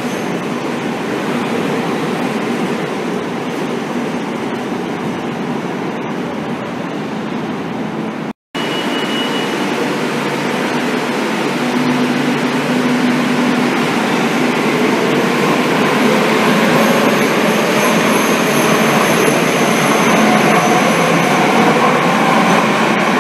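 Madrid Metro trains running past an underground platform: a steady rumble and rail noise, broken by a brief dropout about eight seconds in. In the second half the traction motors' whine rises in pitch and the sound grows louder as the train accelerates out of the station.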